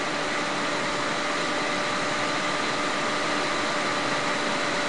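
Steady background hiss of the room and recording, with a few faint steady hum tones and no separate events.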